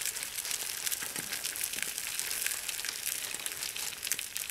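Plastic zipper bag crinkling as it is squeezed to pour beaten egg into a hot frying pan, over a steady sizzle with many small crackles from the pan.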